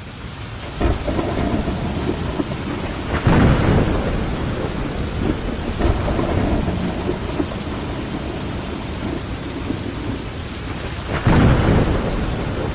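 Steady rain pattering on window glass, fading up over the first second, with two deep rumbles of thunder: one about three seconds in and one near the end.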